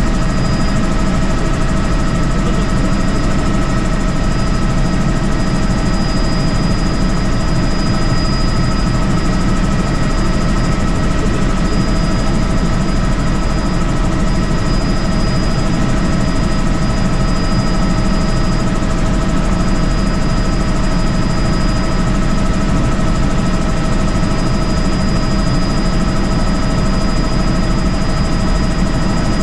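Helicopter in flight: a steady, loud rotor and engine drone with a thin high whine over it, unchanging throughout.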